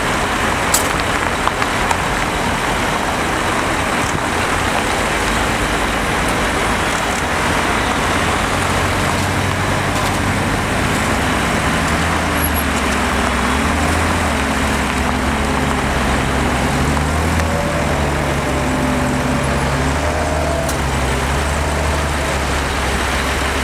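Street traffic noise, with a truck engine coming in about a third of the way through and running with shifting revs. It is most likely the crane truck's diesel working the hydraulic crane.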